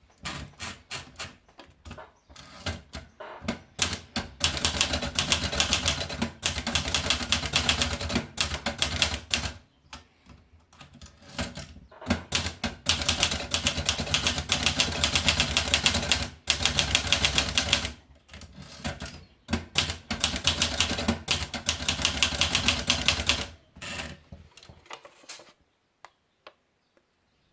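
Olivetti Dora manual portable typewriter being typed on: fast runs of clacking key strikes in several long bursts with short pauses between, stopping a couple of seconds before the end.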